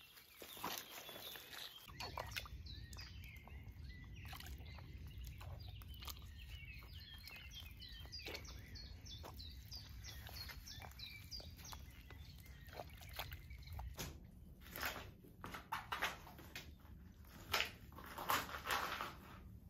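Feet treading in wet, sloppy mud, with birds chirping over a low rumble. About fourteen seconds in, this gives way to sneakers stamping on and crushing soft fruit on a hard tiled floor: a series of sharp squishes, loudest near the end.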